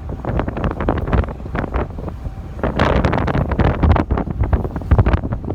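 Wind buffeting the microphone on a fast-moving tender boat, over the rumble of the boat and water rushing past; it grows louder about three seconds in.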